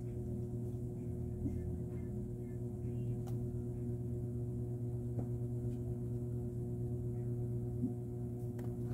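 Steady electrical hum with a buzzy, many-toned drone, and a few faint clicks.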